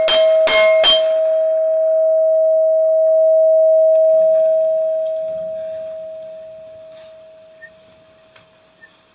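Rifle bullets striking a steel target plate three times in quick succession, about a third of a second apart, each hit making the plate ring. After the last hit the plate's single clear ring dies away slowly over several seconds.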